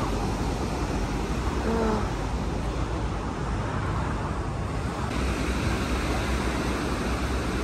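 Steady outdoor noise: a rumble of wind on the microphone under an even hiss, the hiss growing brighter about five seconds in.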